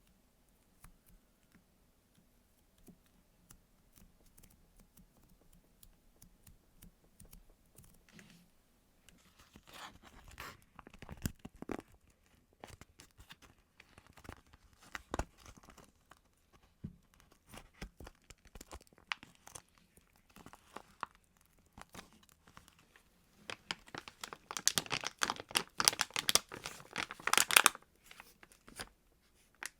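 Plastic wrapping handled close up, crinkling and tearing. There are scattered light crackles first, then a dense run of crinkling near the end that is the loudest part.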